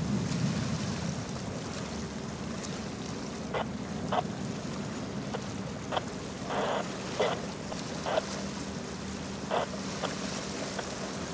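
Low, steady hum of the Legend-class Coast Guard cutter Waesche's machinery as it passes, over wind and water noise. A handful of short, sharp sounds break in through the middle.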